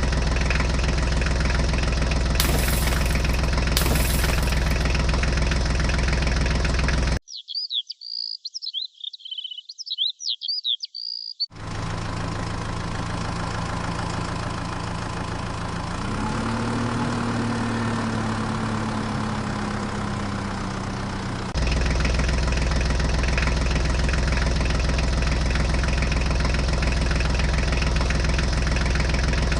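Tractor engine running steadily with a deep hum, in spliced sections. About seven seconds in it cuts to roughly four seconds of high chirping, then to a different engine sound whose pitch rises slightly partway through, before the first engine sound returns.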